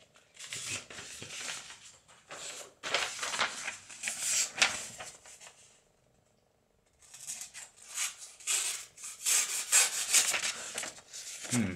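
A sheet of notebook paper rustles and scrapes as the blade of a small Kauhavan Puukkopaja puukko is drawn through it in a series of strokes, with a break of about a second in the middle. The blade drags through the paper instead of slicing it cleanly: its edge is not sharp enough to cut paper well, and the owner thinks it needs sharpening.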